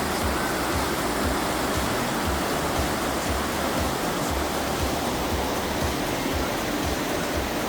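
Waterfall: a steady, even rushing of falling water, with an irregular low rumble underneath.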